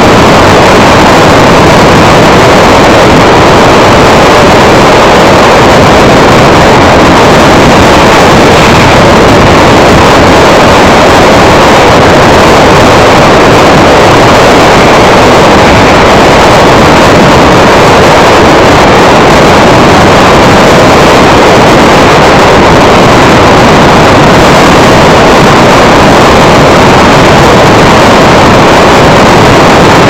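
Steady driving noise of a car on the road: engine, tyre and wind noise blended into one loud, unchanging rush.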